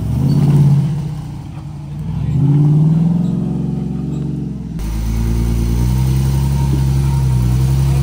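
Off-road Jeep Wrangler engine revving up and down twice as it crawls over rocks, then, from about halfway, a second Jeep's engine running steadily under load while climbing a rock ledge.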